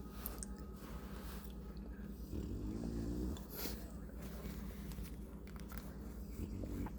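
Bulldog puppy snoring in its sleep: one low snore about two and a half seconds in, lasting about a second, and another starting near the end.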